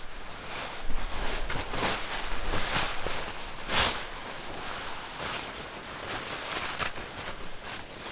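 Quilted blanket rustling and swishing as it is pulled and draped over a wooden ridge pole, in several bursts of fabric noise.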